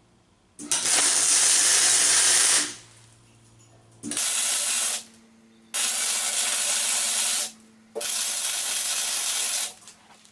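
MIG welder laying finish welds on a steel square-tube frame: a steady hiss that starts and stops sharply four times, each run lasting one to two seconds.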